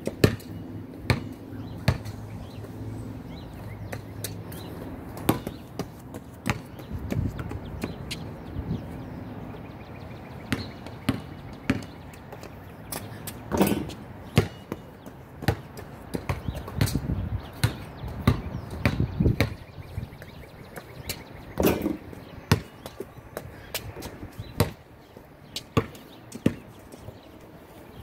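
Basketball bouncing and striking the hoop: many sharp thuds at uneven intervals, a few louder than the rest.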